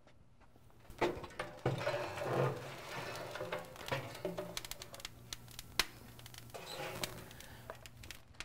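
Scattered sharp clicks and light metal clatter from a steel charcoal chimney starter and the smoker's firebox being handled, starting about a second in.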